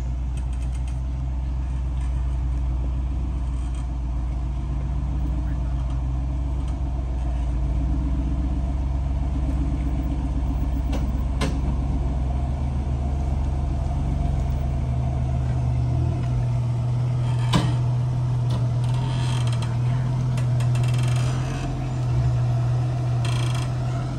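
Off-road 4x4 running steadily, with a shift in its low hum about two-thirds through and a couple of brief sharp clicks.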